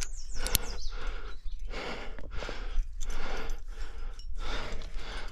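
A rock climber breathing hard and fast from the effort, about one and a half breaths a second. A sharp click about half a second in fits the rope snapping through a quickdraw carabiner's gate.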